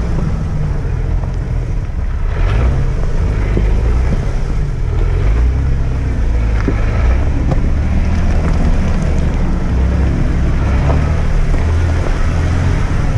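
Stock 2004 Jeep TJ Rubicon's 4.0-litre straight-six running at low speed off-road, a steady low drone with occasional knocks and clicks over rough ground.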